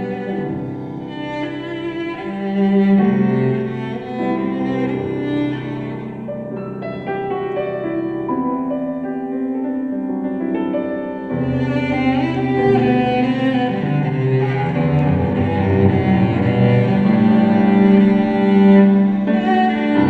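Cello played with the bow, accompanied by grand piano, in a classical concerto movement. The sound thins for a few seconds past the middle, then swells back fuller and louder about halfway through.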